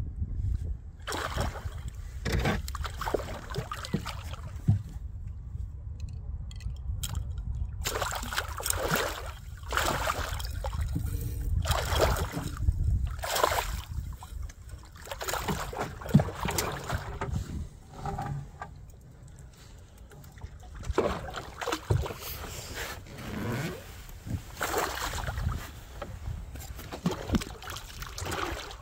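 Water splashing and sloshing beside a small fishing boat, with irregular knocks and bumps, over a low wind rumble on the microphone.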